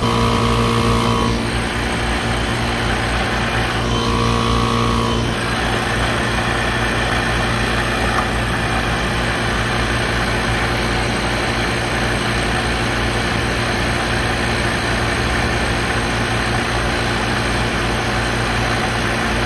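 Inficon Vortex Dual refrigerant recovery machine running steadily as it pumps refrigerant out of the rooftop unit's leaking circuit into a recovery tank, against a high-side pressure of about 300 psi. A steady hum runs under it, and a pitched tone sounds twice briefly near the start.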